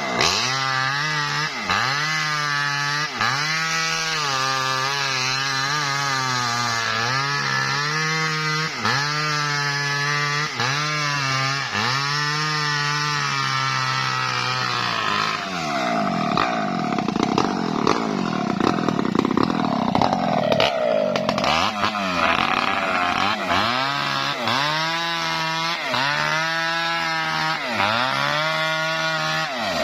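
Small 'mini Maestro' petrol chainsaw running under load as it rip-cuts lengthwise along a coconut trunk. The engine pitch sags and recovers about every second and a half as the chain bites. For a few seconds around the middle the tone turns rougher and noisier before the regular pattern returns.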